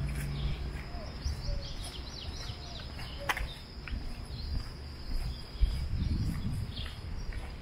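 Outdoor street ambience: birds chirping and calling in the trees over a steady low rumble, with one sharp click a little over three seconds in.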